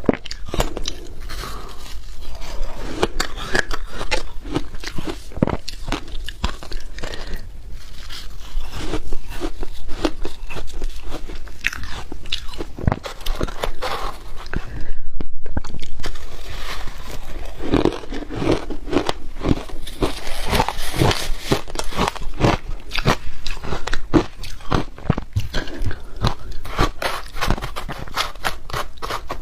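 Shaved ice being bitten and chewed close to the microphone: dense, irregular crisp crunching and crackling, with a louder stretch of crunching about halfway through.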